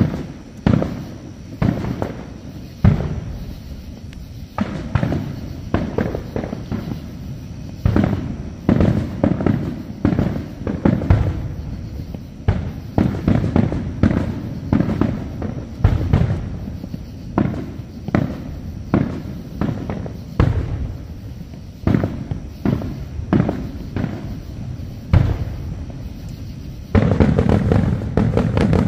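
Fireworks display: aerial shells bursting in a steady string of bangs, each trailing off, one after another every second or so. About 27 seconds in they thicken into a dense, louder barrage of overlapping bursts.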